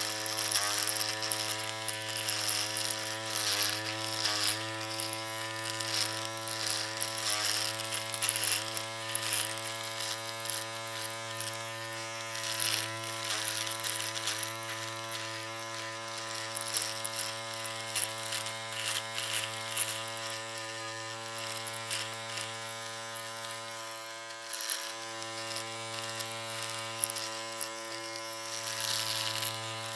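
Electric shaver running with a steady buzz, its pitch dipping briefly every second or so during the first several seconds, as when it is pressed against skin.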